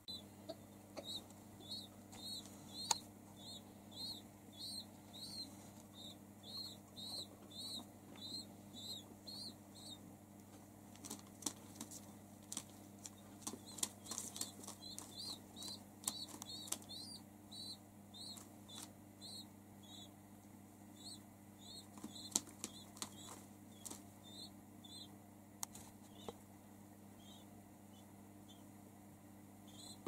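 Pigeon squab peeping: a short, high chirp repeated about twice a second, pausing briefly about ten seconds in and dying away near the end. Scattered light clicks and taps from pigeons moving about, over a steady low hum.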